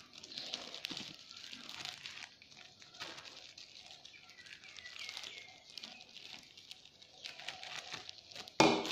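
Plastic bag crinkling and rustling as ground rice-wine starter is shaken from it onto steamed sticky rice in a metal pot, with a spoon working the rice. There is a louder bump near the end.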